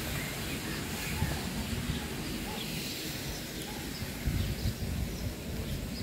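Wind rumbling on the microphone outdoors, with birds chirping faintly in the background. A few soft low thumps come near the end.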